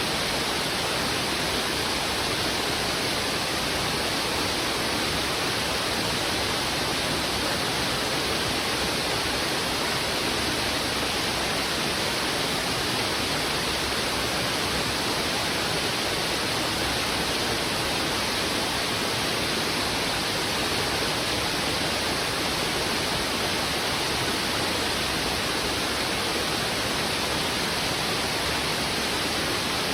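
Heavy river water rushing fast over rocks: a steady, even rush of water that does not change.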